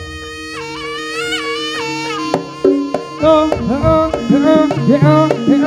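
Live jaranan music: a shrill, bending reed-pipe melody over sustained low tones. Drum strokes come in about two seconds in and grow busier.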